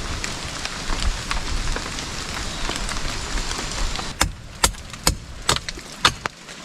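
Rain pattering on a tarp shelter as a dense hiss with scattered drops. About four seconds in, the hiss drops away abruptly, leaving loud, irregular sharp ticks.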